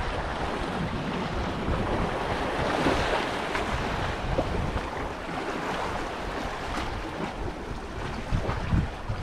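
Waves washing with wind buffeting the microphone, a steady rushing noise that swells about three seconds in, with gusty low rumbles throughout.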